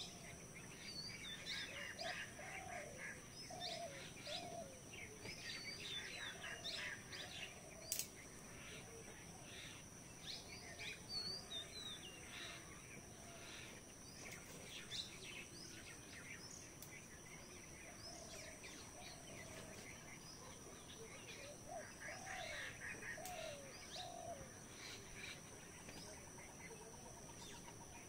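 Faint rural birdsong: many small birds chirping and calling, with lower short calls coming in twos and threes, over a steady high-pitched hum. A single sharp click about eight seconds in.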